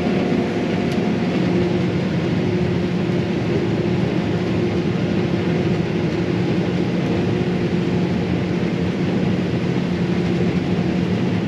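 Combine harvester running steadily while harvesting soybeans, a constant even drone of engine and machinery with a low hum.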